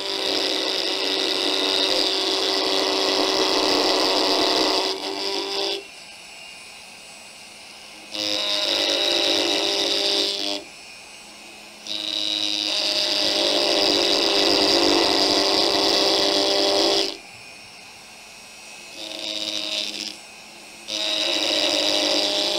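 Handheld rotary carving tool cutting grooves into turned wood: a high whine that comes and goes in about five runs of one to five seconds each, with a faint low hum in the pauses.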